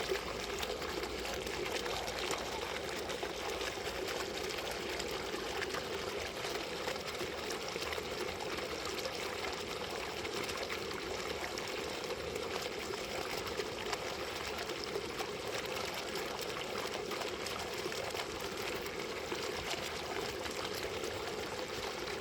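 Water fountain running: steady splashing and trickling of falling water, with no change in flow.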